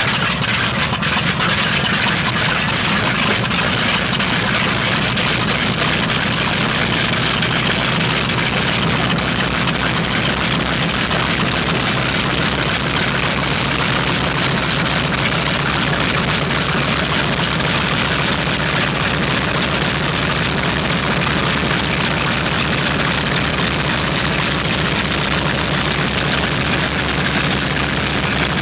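North American B-25 Mitchell's Wright R-2600 fourteen-cylinder radial engine, just caught after start-up, running steadily at idle.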